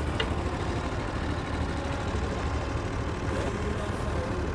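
A steady, unchanging low rumble, engine-like, with a faint single tick just after the start.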